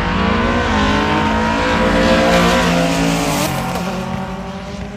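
Loud car engine running at high revs, its pitch shifting a few times, fading over the last second.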